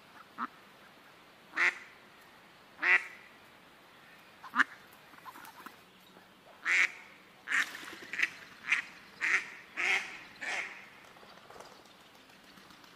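Australian wood ducks calling: about eleven short calls, a few spaced out at first, then a quicker run of roughly one every half second from about halfway through.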